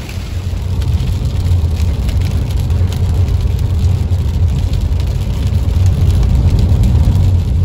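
Car driving in heavy rain, heard from inside the cabin: a steady low rumble of road and engine, with rain pattering on the windshield. It gets louder about a second in.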